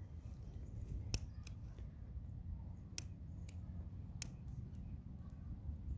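Long-nosed butane utility lighter's trigger clicked about five times at uneven gaps, sparking without yet lighting, over a low steady rumble.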